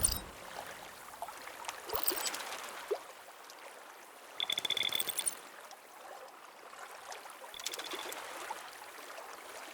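Quiet synthetic nature ambience of trickling stream water, with a pulsed high chirping call about halfway through and a fainter one near the end.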